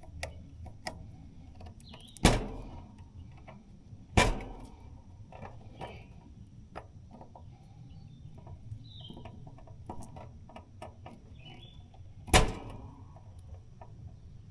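Three loud, sharp knocks with a short ring after each, about two, four and twelve seconds in, among lighter clicks and taps of handling.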